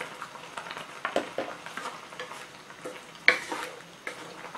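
Wooden spatula stirring and scraping a thick curd-based curry in a pan, with scattered light knocks over a low sizzle of the simmering curry. One sharper scrape or knock comes about three seconds in. The stirring is kept going so the curd does not split.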